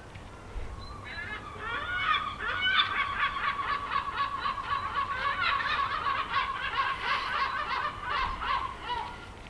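A bird singing a long run of rapid, varied chirps and trills.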